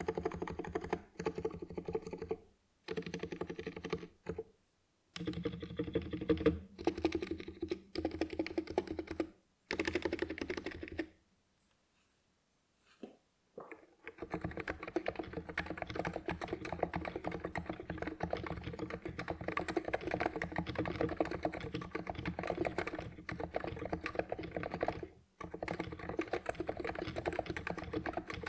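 Typing on a Cox Endeavour 50g electrocapacitive (Topre-clone) keyboard with stock PBT keycaps. First come several short bursts of keystrokes with brief gaps between them, then a pause of about three seconds near the middle, then a long stretch of fast, continuous typing.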